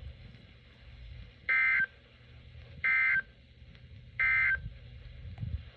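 Emergency Alert System SAME data bursts: the End of Message code sent three times, three short screechy modem-like bursts about a third of a second each, roughly 1.3 s apart.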